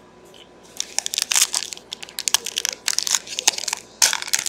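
Crinkly wrapper of a trading card pack being torn open and handled, a run of irregular sharp crackles starting about a second in, with a louder bout near the end.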